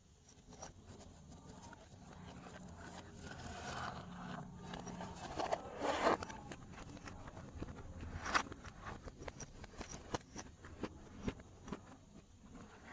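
Slime being worked and scraped, with a run of small sticky clicks and crackles, swelling in the middle and loudest around six seconds in, with one sharp click a couple of seconds later.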